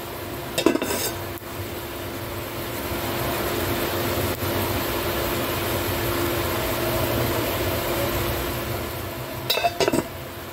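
Metal cookware clinking: a sharp clink of a steel pot lid or utensil about a second in, and a few quick clinks against a steel bowl near the end, over a steady hiss with a faint low hum.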